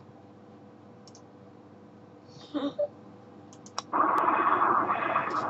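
A few computer mouse clicks over a faint room hum. About four seconds in, a steady, noisy hiss starts as the low-quality phone video begins playing.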